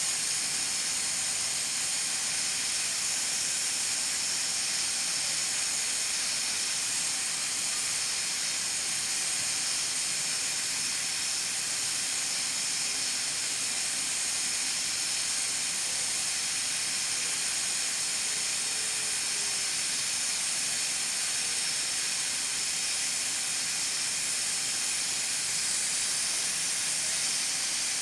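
Nigro pressure cooker letting off steam at its lid weight in a steady, unbroken high hiss, the sign that it is up to pressure.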